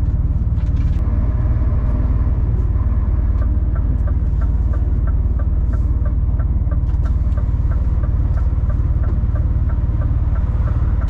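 Diesel engine of a 26-tonne rigid lorry running with a steady low rumble, heard from inside the cab. From about three seconds in, the turn indicator ticks steadily, about three ticks a second.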